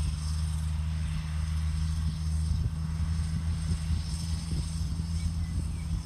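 Case MXU 130 tractor's diesel engine running steadily with a low drone as it drives across the field working a KRM fertiliser spreader.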